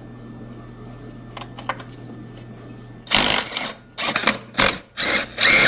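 Cordless 20-volt impact driver with a socket extension hammering at a bolt in a run of short rattling bursts, starting about three seconds in.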